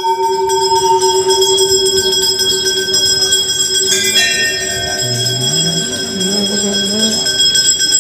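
Large hanging brass temple bell ringing on after a strike, its steady tone slowly fading. A second, lighter bell strike comes about four seconds in, and a low melody rising in steps comes in near the end.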